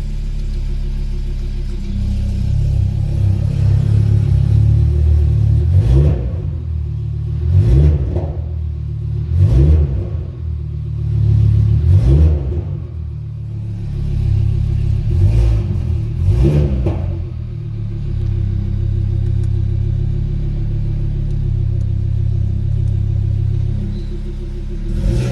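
Freshly rebuilt Audi RS3 2.5-litre five-cylinder (DAZA) engine running with the exhaust flap open, blipped about six times in short revs over the middle of the stretch, then settling back to a steady idle. It is still warming up after the rebuild.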